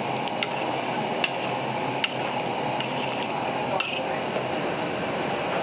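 Thick stew sauce with jengkol beans bubbling and sizzling in a hot wok, a steady hiss. A metal spatula stirring it gives about half a dozen sharp clicks scattered through.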